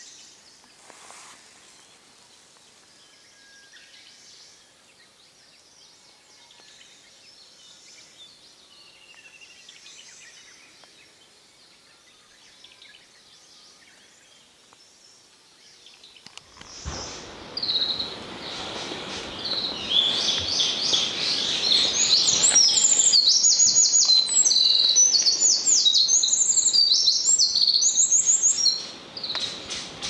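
Faint distant bird calls at first. About halfway through, a Mosukei wren, the Izu Islands race of the Eurasian (winter) wren, starts a loud, fast song of high trills and chattering notes that runs for about ten seconds and stops shortly before the end.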